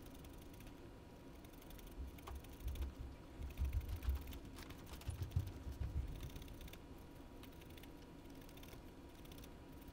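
Soft low bumps and faint clicks of fingers handling a small metal model-train wheel and axle, clustered from about two seconds in to past the middle, over a faint steady hum.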